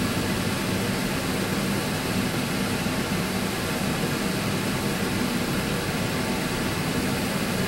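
A steady mechanical hum with an even rushing air noise, like a fan unit running, unchanging throughout.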